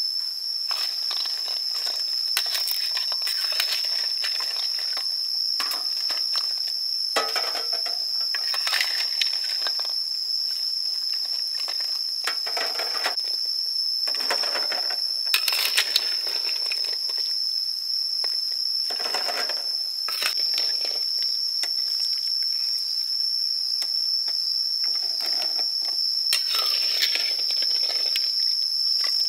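A steady, high-pitched insect drone runs throughout. Several times it is joined by water splashing as a metal ladle scoops quail eggs out of a tub of water.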